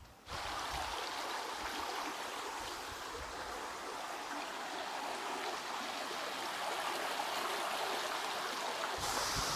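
Steady rush of stream water over rocks, starting suddenly a moment in. Near the end, low rumbling noise joins it.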